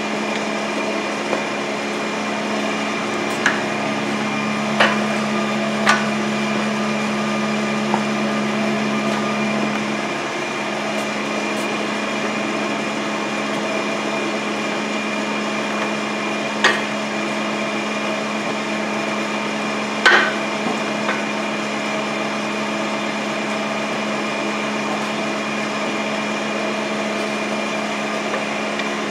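A steady mechanical hum with a clear pitched tone and its overtones, the lower part of it dropping away about ten seconds in. A handful of sharp metal clicks and knocks stand out, the loudest about twenty seconds in.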